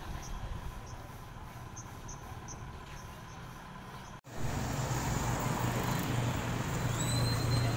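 Road traffic. At first a low traffic rumble with short high chirps a few times a second. About four seconds in, a cut brings louder street traffic: vehicle engines running close by, with a brief high-pitched squeal near the end.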